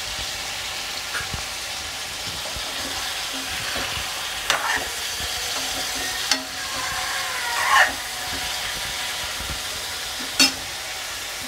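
Raw chicken pieces sizzling in hot oil in a metal kadai, with a steady frying hiss. A metal spatula stirring them scrapes and knocks against the pan several times; the loudest scrape comes about eight seconds in and a sharp knock near ten seconds.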